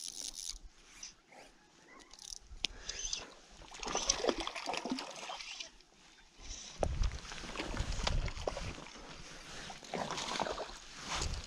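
A hooked tiger trout splashing and thrashing at the lake surface close to the shore rocks as it is fought and landed, in irregular bursts about four, seven and ten seconds in.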